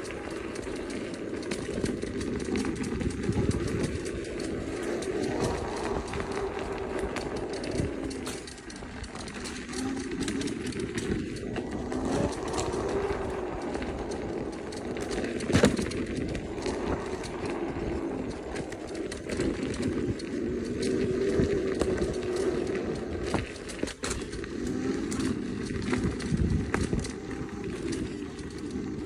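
KingSong S22 electric unicycle ridden over a dirt trail: wind on the microphone and tyre rumble, with a motor whine that rises and falls with speed. Small knocks as it rolls over bumps, with one sharp knock about halfway.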